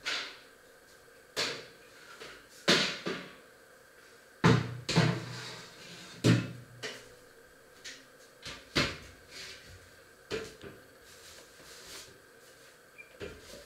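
Irregular knocks and clunks of objects being handled, about a dozen, the loudest with a low thud between about four and six and a half seconds in.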